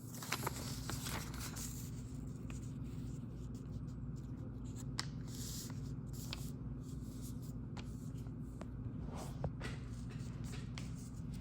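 A sheet of paper being folded and creased by hand: scattered soft rustles and small taps of paper sliding and being pressed flat, over a steady low hum.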